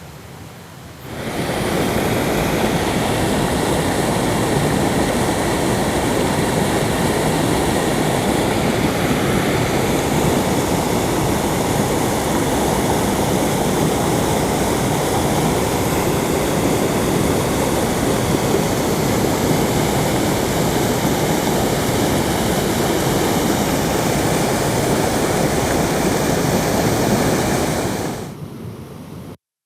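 Steady rush of a river and waterfall, loud and even. It comes in about a second in and fades out near the end, cut off by a moment of dead silence.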